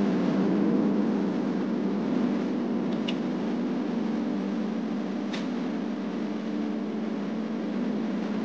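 Steady low drone of a vehicle's engine running, with two faint short clicks about three and five seconds in.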